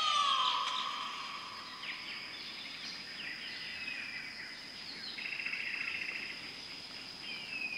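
Birds calling over a steady, high insect drone. A loud descending whistle comes at the start, followed by a few falling whistled notes and a short trill.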